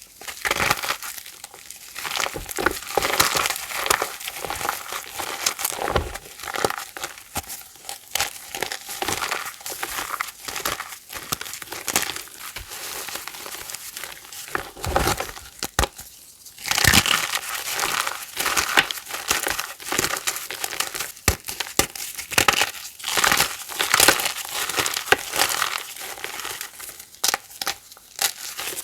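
Reformed gym chalk being crushed: dense, crunchy crumbling with many small cracks as the blocks break apart, with a brief pause a little past halfway.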